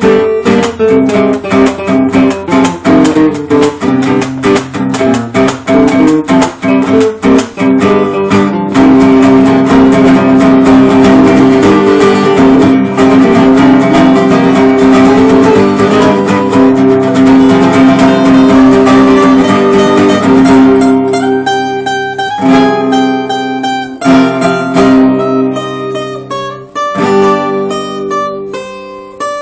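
Acoustic guitar played in a Spanish style: fast, dense strumming that gives way, about twenty seconds in, to sparser single plucked notes.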